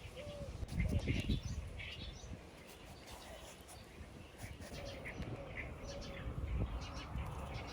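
Small birds chirping outdoors, short high calls scattered through, over a steady low rumble.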